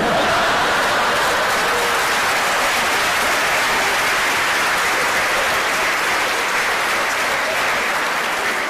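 Audience applauding: a dense, steady clapping of many hands that eases slightly near the end.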